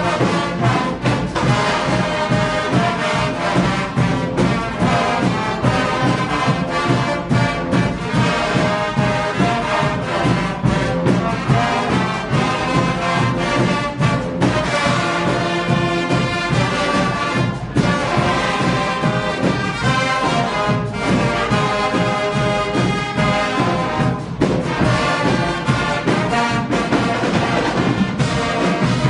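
Brass band music, trumpets and trombones playing together, loud and continuous.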